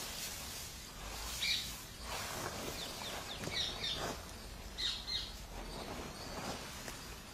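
Dry straw fodder and a woven plastic sack rustling as the fodder is shaken out onto the ground, with a few short bird chirps.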